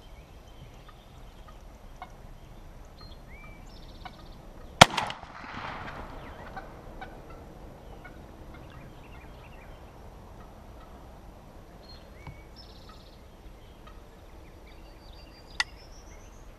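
Wild turkey tom gobbling once, about five seconds in: a rapid rattling call lasting a second or so, with a sharp click just before it. Small bird chirps here and there, and another sharp click near the end.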